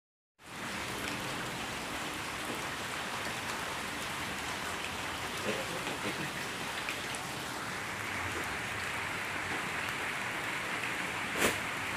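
Steady rain falling on a wet yard: an even hiss of drops. One sharp tap stands out near the end.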